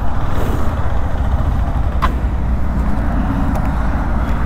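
KTM 390 Adventure's single-cylinder engine running at low speed, a steady low rumble with road and wind hiss over it. A single short click comes about two seconds in.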